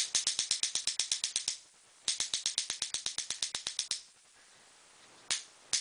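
Proto SLG paintball marker's electronic trigger frame dry-fired off the body, its board cycling in rapid even clicks about ten a second. Two bursts of a second and a half and about two seconds, a pause, a single click, then another burst starting near the end.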